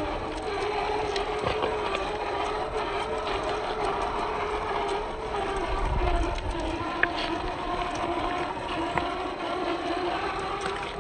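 Electric motor and drivetrain of a 1/10-scale Boom Racing BRX01 RC crawler, whining steadily as it drives, its pitch wavering with the throttle. Scattered sharp clicks and knocks come through, the plainest about seven and nine seconds in.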